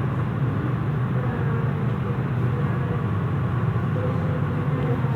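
Steady low background rumble with a hiss above it, even throughout with no separate events.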